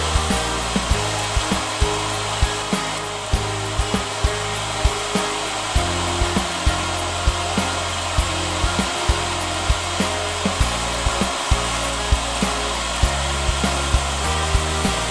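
Continuous sizzling of food frying in oil in a pan, under background music with a regular beat.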